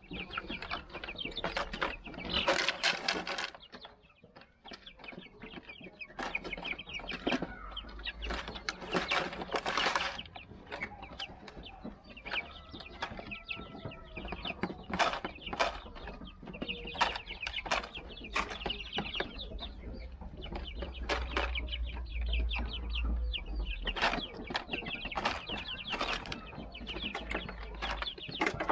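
Young Silver Laced Wyandotte chickens pecking at a plastic bottle feeder: a dense, irregular run of quick taps and rattles, with soft clucking and peeping among them. There are a couple of louder scuffles, one about two to three seconds in and one near ten seconds.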